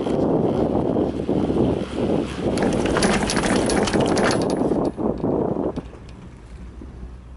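Chairlift passing a lift tower: a steady rumble, with a quick run of about a dozen clicks as the chair's cable grip rolls over the tower's sheave wheels, after which it goes much quieter about six seconds in.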